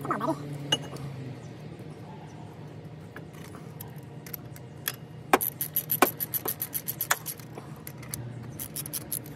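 Metal tools clinking, then a ratchet wrench clicking rapidly, about six clicks a second for some two seconds, as a bolt on the brake caliper is turned, with a few more clicks near the end.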